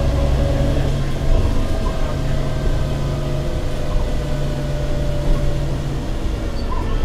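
MCW Metrobus double-decker running along under way, heard from inside the lower deck: a steady low diesel drone with a higher whine over it. The engine note changes about six seconds in.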